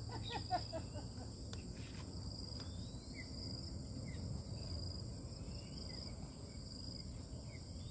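Outdoor insect chorus: several steady high-pitched drones, one pulsing about once a second, over a low background rumble.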